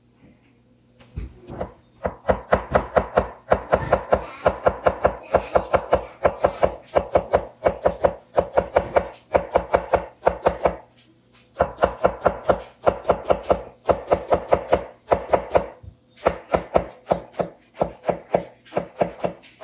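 A kitchen knife rapidly cutting eggplant against a cutting board in the fine, close cuts of the suoyi knife technique, about four or five strokes a second. It starts about a second in and breaks off briefly twice.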